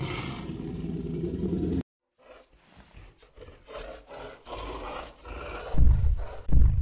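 Dinosaur roar sound effects played by an augmented-reality dinosaur app. A long roar cuts off abruptly about two seconds in. After a short break come further growling roars, with deep heavy bursts near the end.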